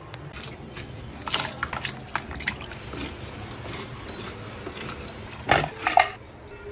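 Raw hilsa fish steaks dropping onto a ceramic plate: a run of light, wet knocks and clicks, then two louder landings near the end.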